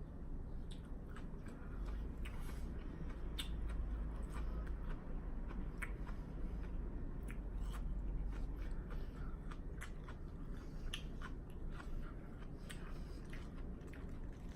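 Close-miked chewing and biting of a chicken lettuce wrap: crisp lettuce crunching, with many scattered small mouth clicks over a low steady hum.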